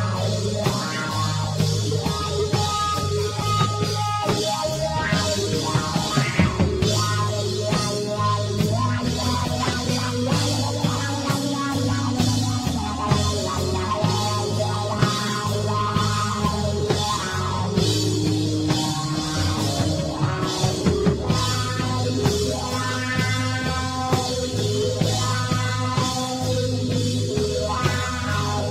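Live psychedelic rock band playing: electric guitar and a drum kit keeping a steady beat.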